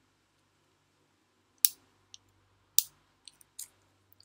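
Spring-loaded aluminium clip of a Xiaomi Mijia rollerball pen snapping back against the barrel: two sharp clicks about a second apart, then a few fainter ticks.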